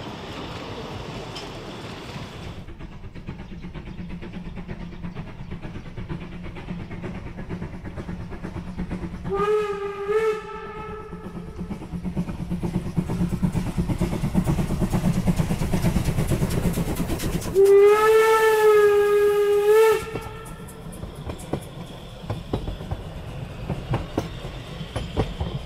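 750 mm narrow-gauge steam locomotive 99 1734, built in 1929 by the Sächsische Maschinenfabrik, approaching with its running sound growing louder. It sounds its steam whistle twice, a short blast about ten seconds in and a longer, louder one a few seconds later. Then the coaches roll past, their wheels clicking over the rail joints.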